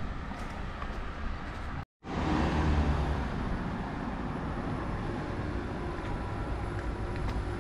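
Outdoor street ambience: steady road-traffic noise with a low rumble, cut off for an instant about two seconds in where the recording jumps, then a little louder just after.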